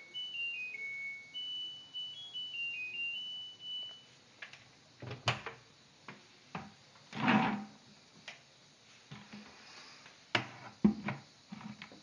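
LG front-loading washing machine playing its electronic end-of-cycle tune, a short melody of high beeping notes lasting about four seconds. After it come clicks and knocks as the door is opened, with a rustle around seven seconds in.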